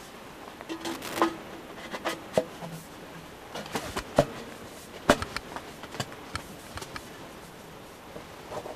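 Steel stovepipe sections of a portable tent wood stove being handled and fitted together, giving a series of short metallic knocks and scrapes. The loudest knock comes about four seconds in.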